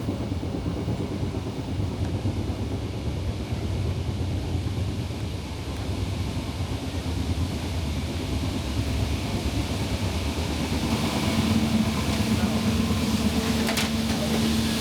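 Passenger train running along the track: a steady low rumble of the carriage in motion. About eleven seconds in, a steady hum and more hiss join it.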